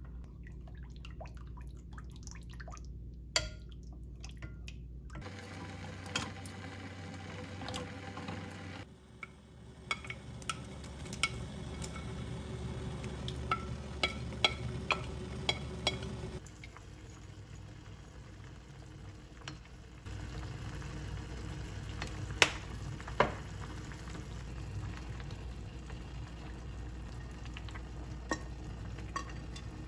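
Doenjang jjigae (Korean soybean-paste stew) bubbling in a small clay pot while spoons stir it and scrape in paste and vegetables, with many short, sharp clinks of utensils against the pot and plate.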